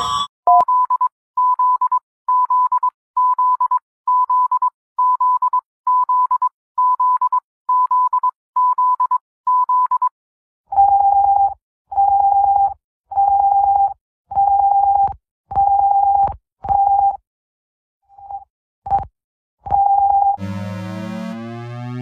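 Electronic emergency-alert tones: a string of about thirteen short, steady, high beeps at about one and a half a second, then, about ten seconds in, a different alarm of longer, lower beeps at about one a second. Near the end a synthesized alert melody with stepping, falling lines begins.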